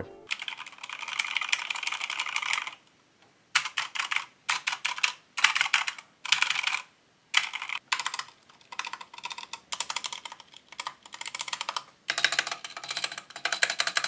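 Typing on a Corsair K70 mechanical keyboard: runs of quick clacking keystrokes with short pauses between them. The keys carry a rattle, the annoying sound that the owner can't stand.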